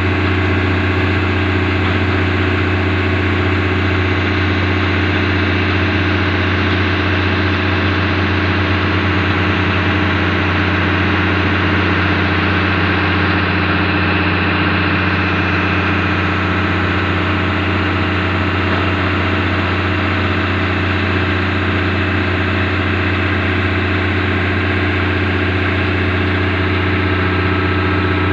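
Sumitomo excavator's diesel engine running at a steady speed, a deep even drone with no revving up or down.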